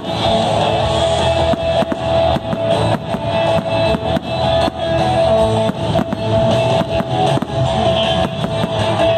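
Loud rock music with a drum kit, with the bangs and crackle of aerial firework shells bursting throughout.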